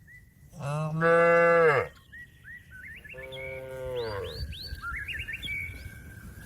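A cow mooing twice, a long loud moo and then a shorter, quieter one, calling to a herd mate. Small birds chirp between and after the moos.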